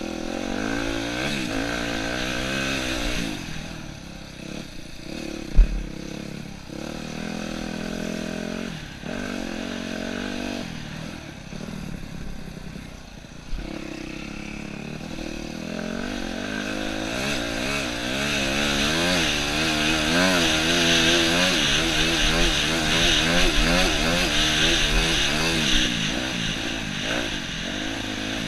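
Yamaha YZ250F dirt bike's four-stroke single-cylinder engine being ridden on a trail, revving up and down as the rider works the throttle and gears. There is a sharp knock about five and a half seconds in. The engine runs harder and louder through the second half.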